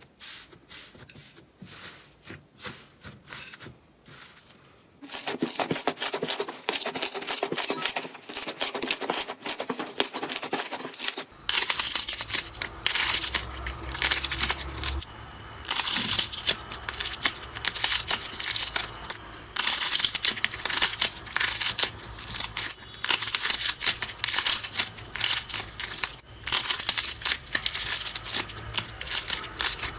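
Slime being squeezed and worked close to the microphone: dense crackling and popping, fainter for the first few seconds and then much louder. A low hum joins about eleven seconds in.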